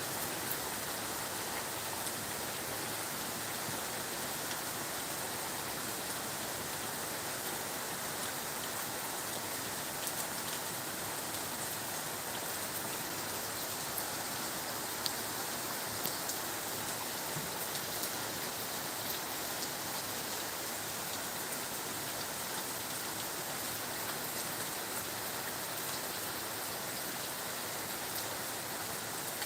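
Steady, continuous heavy rain falling, with the patter of drops hitting surfaces.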